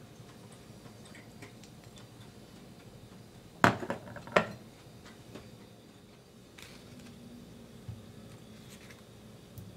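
A ceramic plate set down on a hard counter: two sharp clinks under a second apart, followed later by a few faint taps and soft handling sounds.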